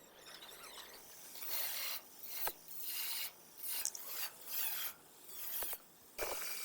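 Hand rasping on car-body metal: about six short rasping strokes in a row, each roughly half a second with brief gaps between, and a couple of light clicks.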